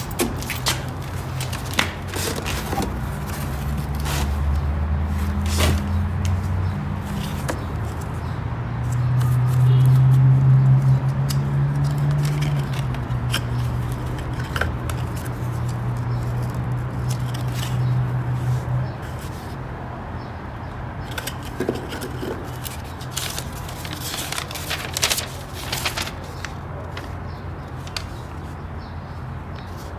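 Scraping and clicking as an electromagnetic lock and its packaging are handled and unpacked, over a low droning hum that shifts in pitch a few times and fades out after about two-thirds of the way through.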